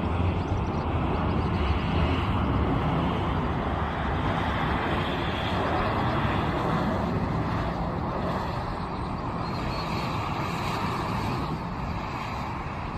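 Jet engines of a Boeing 737-800 airliner on final approach, a steady rushing drone that eases slightly near the end.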